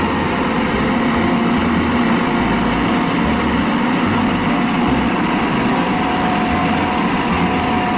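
Light dump truck's engine running steadily while its hydraulic hoist raises the tipper bed and dumps a load of soil.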